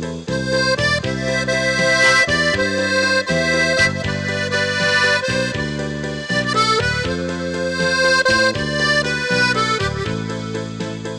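Instrumental background music, a melody line over sustained chords that change every second or so.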